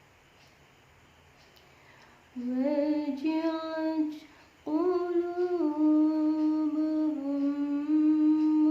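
A single voice chanting Qur'an recitation in a long, drawn-out melodic line. It sets in about two and a half seconds in, breaks off briefly, then holds notes that step up and down in pitch. The reciter describes the voice as hoarse from a cough and cold.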